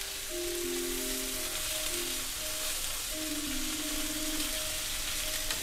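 Beef oxtail pieces sizzling as they sear in olive oil in a frying pan, a steady frying hiss. Background music of held notes plays underneath.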